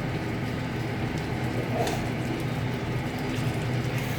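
Steady low kitchen hum with a light sizzle from chicken curry cooking in a pan, and a few faint clicks as the pan is stirred.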